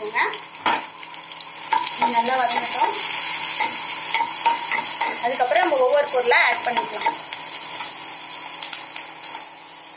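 Chopped onions and green chillies sizzling in hot oil in a kadai while a perforated steel spatula stirs and scrapes them around the pan. The sizzle dies down near the end.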